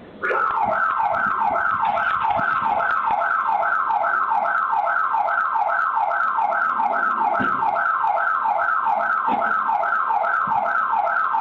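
Electronic alarm siren switching on suddenly and sounding loud and continuous, a rapid falling 'whoop' pattern repeating about two and a half times a second.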